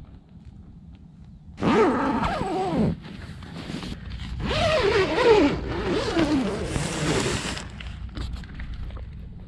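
A zipper pulled twice: a short pull of about a second and a half, then a longer pull of about three seconds. Its pitch wavers and falls as the pull speed changes.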